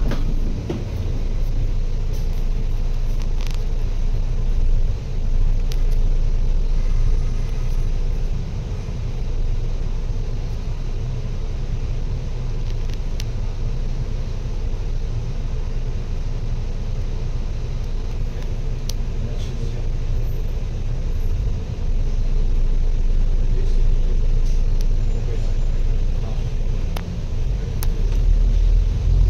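Steady low rumble that runs on without a break, with a few faint clicks above it.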